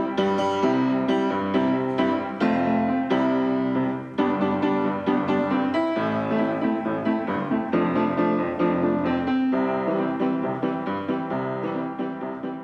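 Piano music, a steady run of notes and chords, fading out near the end.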